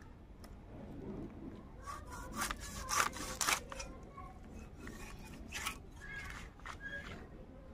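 A whole tuna being cut on a boti, the upright blade of a Bengali fish-cutting knife set in a wooden base. The fish is pushed and scraped against the blade in a series of cutting strokes, loudest a little before halfway, with a few weaker strokes later.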